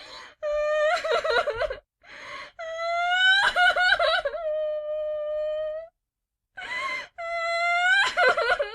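A person crying and wailing: several drawn-out, high-pitched wails with wavering pitch, one long and held, broken by sharp sobbing breaths in. There are short gaps of dead silence between the wails.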